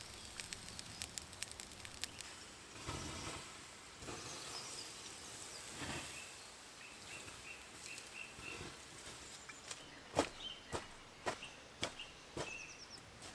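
Quiet woodland ambience: a faint steady hiss with scattered small clicks and rustles, and a few short, high bird chirps in the second half.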